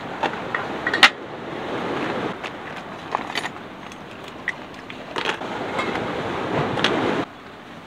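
Plastic items clicking, knocking and rustling as things are handled and moved about inside a plastic storage crate, with the sharpest knock about a second in. The rustling stops abruptly shortly before the end.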